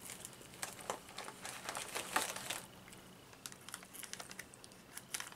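Plastic snack wrapper crinkling and crackling as it is handled, a dense run of crackles over the first two and a half seconds, then sparser ones.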